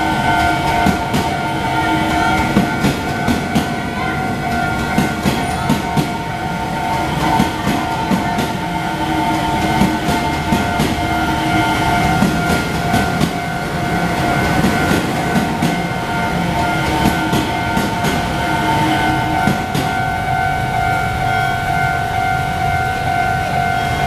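Taiwan Railways EMU700 electric commuter train passing over a level crossing, its wheels clacking over the rail joints in repeated groups of knocks over a rumble. The crossing's warning bell rings continuously on top.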